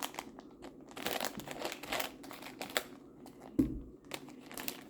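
Plastic packaging crinkling and rustling in bursts as a sun-shaped pop-it fidget toy is handled, with a single dull thump about three and a half seconds in.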